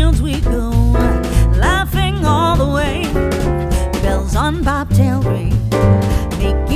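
Background music: a song with a singing voice over bass and drums, with a steady beat.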